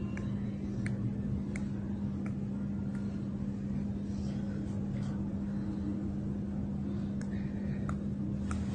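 A steady low hum with one even pitch, with faint sharp clicks about once a second.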